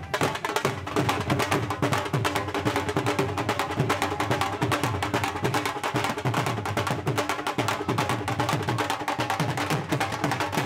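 Several Punjabi dhol drums beaten with sticks in a fast, dense, driving rhythm.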